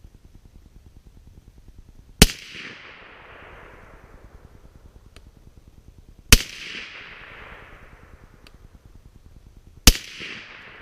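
Three suppressed shots from a .300 Blackout rifle fired through an AAC 30-calibre suppressor with 110-grain Hornady V-MAX loads. Each is a sharp report followed by a fading echo, the first about two seconds in, the next two roughly four and three and a half seconds apart.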